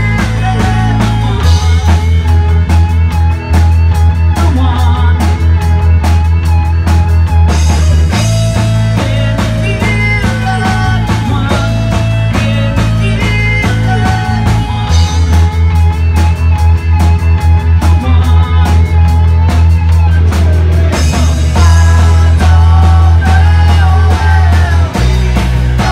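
A rock band playing: electric bass holding long low notes that shift every several seconds, a Pearl drum kit keeping a steady beat, electric guitar, and a singing voice.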